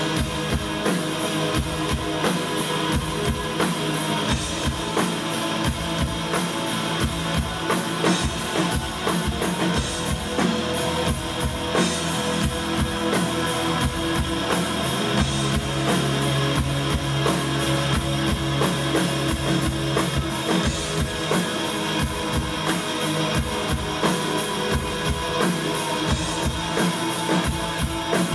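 Rock band playing live: a drum kit keeps a steady beat under guitars.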